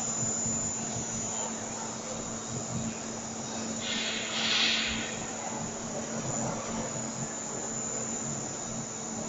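LYJ-300 double-head CNC circular saw machine running, with a steady low hum and a steady high-pitched whine. A louder hiss rises and falls about four seconds in.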